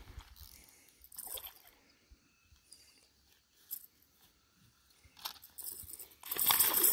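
A hooked catfish splashing and thrashing at the water's surface as it is reeled in, loudest near the end, after a few faint brief splashes.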